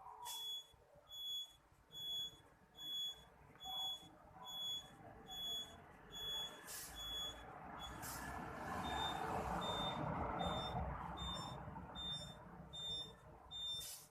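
RC truck's reversing beeper sounding a short high beep about twice a second, pausing briefly about halfway through and then resuming. A louder steady rushing noise swells up in the middle while the beeps carry on.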